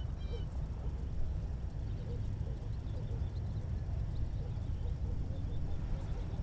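Wind buffeting the microphone in a steady low rumble, with a few faint bird chirps.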